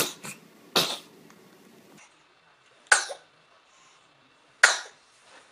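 A baby sneezing, four short sharp sneezes: two close together at the start, one about three seconds in, and one near the end.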